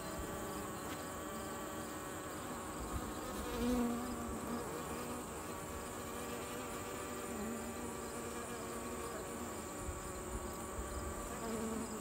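Honeybee colony at the open top bars of a nuc hive, a steady hum with single bees buzzing close past now and then, about four seconds in and again near the end. Many of the bees are fanning to spread the queen's pheromone after her return, giving the colony a raised roar.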